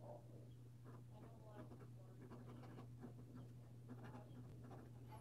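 Faint scratching of an extra-fine stainless steel fountain pen nib writing on paper, the light feedback of the nib, over a steady low hum.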